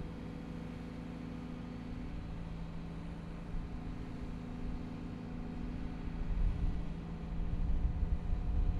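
Cat excavator's diesel engine running steadily, with a low rumble that grows louder about six seconds in as the machine works the bucket toward the bench stake.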